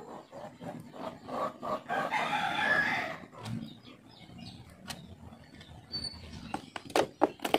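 A rooster crowing once, starting about a second in and lasting about two seconds. A few light clicks follow near the end.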